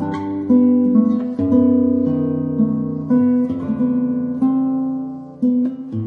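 Instrumental background music played on acoustic guitar, with plucked notes and chords that ring and die away.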